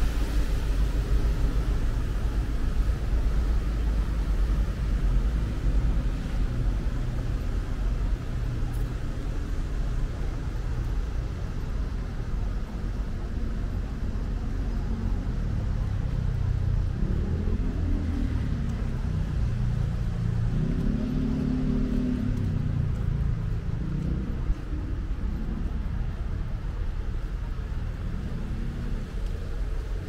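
Steady low rumble of road traffic, with louder, wavering sounds for several seconds in the middle.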